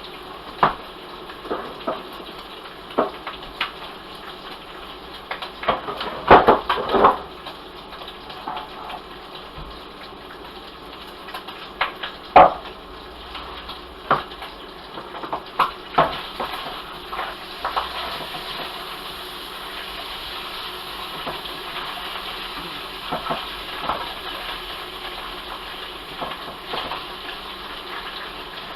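Pot of frying cabbage and bacon being stirred: a metal utensil knocks and scrapes against the pot again and again, busiest around the first quarter. After the halfway point the knocks thin out and a steady hiss from the cooking takes over.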